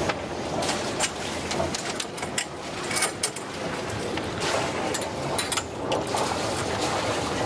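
Irregular metal clicks and rattles from a sailboat's lifeline gate fittings being handled, over a steady rushing noise.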